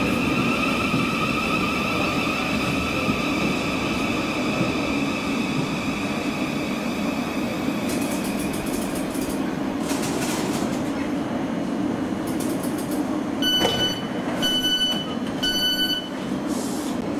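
Electric train running, with a steady rumble and a high whine that fades out about halfway through. Near the end come three short electronic beeps about a second apart.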